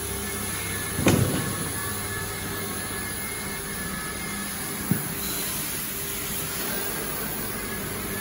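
Steady machinery and ventilation noise of a factory hall, with a faint steady hum, one loud knock about a second in and a sharp click near five seconds.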